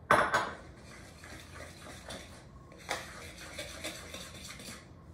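A sharp clack at the start as a glass measuring cup is set down on a stone counter, then a metal utensil stirring and scraping grated pecorino romano and pasta water in a ceramic bowl with a run of quick strokes, working it into a creamy paste.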